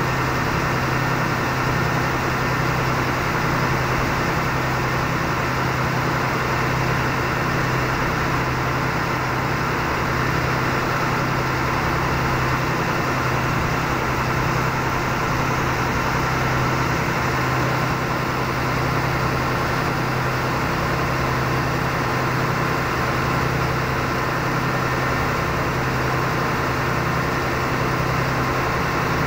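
River boat's engine running steadily, heard on board as a constant, even hum.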